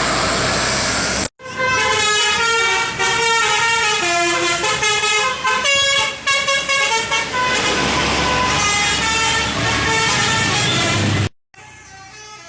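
Telolet bus horn playing a quick multi-note melody, its pitched notes stepping up and down. It follows a second of loud noise, and near the end it cuts off abruptly, leaving fainter horn notes.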